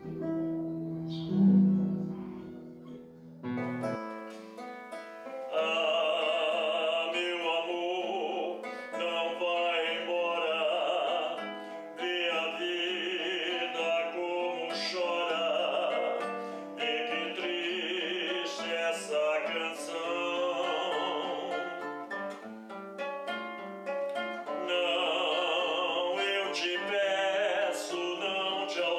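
A man singing a seresta serenade with strong vibrato over his own plucked classical guitar accompaniment; the voice comes in about four seconds in after a few quiet guitar notes.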